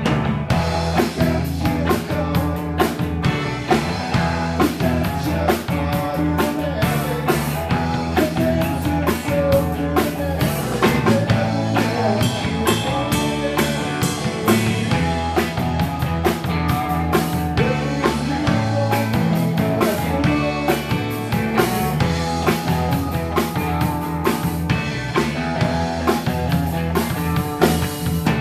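Rock band playing live, with a drum kit keeping a steady beat under sustained instrumental parts.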